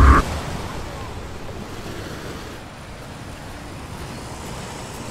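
Steady wash of ocean surf with wind, after a loud fireworks rumble cuts off just at the start.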